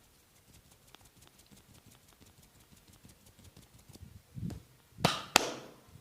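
Hands at work in a head massage: faint light tapping and rubbing, then a dull thump and two loud, sharp smacks about a third of a second apart near the end.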